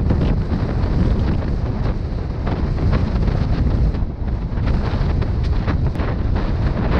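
Wind buffeting the camera's microphone of a 250 cc motorcycle riding a loose gravel track, with the bike's engine and the tyres on gravel under it. Short knocks from stones and bumps come through here and there.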